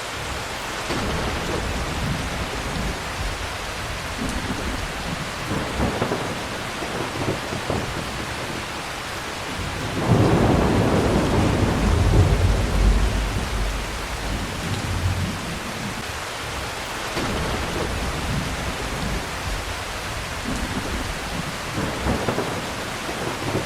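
Steady rain falling, with a long rolling rumble of thunder starting about ten seconds in and fading over several seconds.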